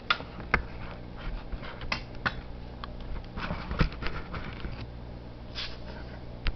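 Handling noise: irregular clicks, light knocks and rustles as a phone and camera are moved about, over a faint steady low hum.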